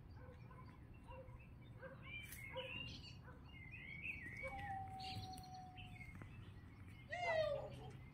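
Birds chirping and calling, faint, with a louder falling call near the end, over a low steady background rumble.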